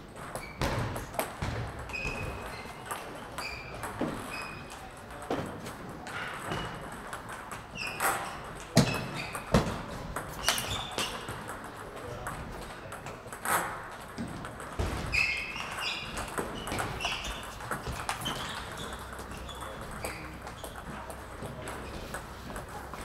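Table tennis balls clicking sharply off bats and tables in an irregular patter, with rallies on several tables at once.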